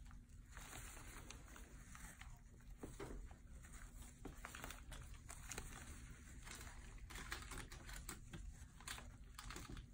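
Faint crinkling and rustling with scattered soft clicks, from gloved hands working gauze and drapes while pressing out a drained abscess.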